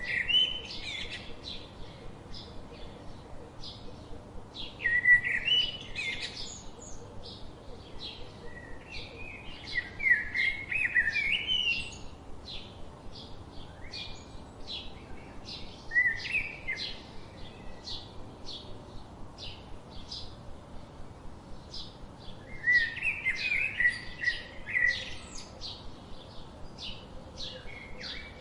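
Small birds chirping: a steady run of short, high chip notes, a few a second, with louder warbling phrases breaking in every five or six seconds.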